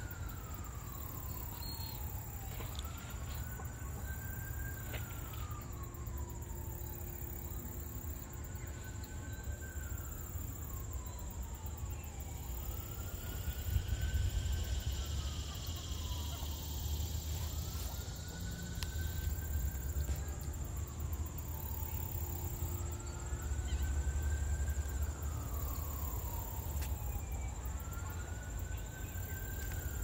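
Emergency-vehicle siren wailing, each cycle rising quickly and then falling slowly, repeating about every four seconds. Under it run a steady low rumble and a thin, steady high-pitched tone.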